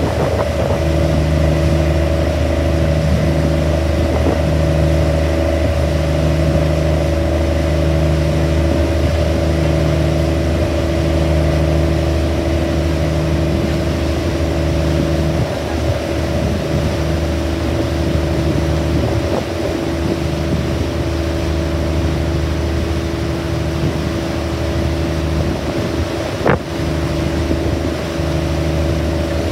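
Boat engine running steadily, heard from on board: a low drone with a slow throb about once a second. A single sharp knock comes near the end.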